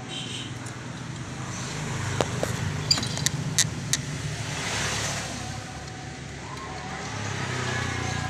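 Car engine running with a steady low drone that swells up twice, with a few sharp clicks or taps about two to four seconds in.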